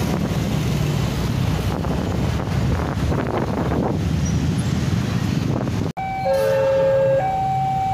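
Passenger train hauled by a CC 206 diesel locomotive running past a level crossing, a steady rumble. After a cut about six seconds in, the crossing's warning alarm sounds, two tones taking turns high and low about once a second.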